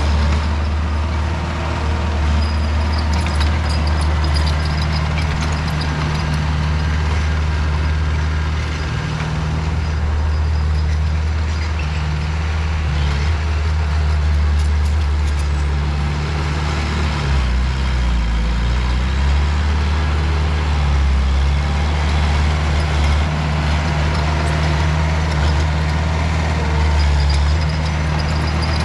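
Diesel engine of a heavy earthmoving machine running steadily as a loud low drone, its pitch stepping up and down a little in the second half.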